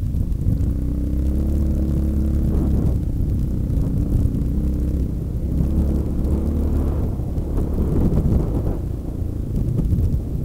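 Yamaha XT 350's single-cylinder four-stroke engine running as the bike rides a rough dirt track, its pitch shifting up and down with the throttle, under heavy rumble from wind and the bumpy ground on the mounted camera. In the last few seconds the engine note is mostly lost in the rumble.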